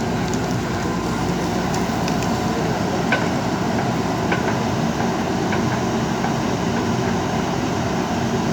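JCB 3DX backhoe loader's diesel engine running steadily under working load, with a few faint metallic clinks.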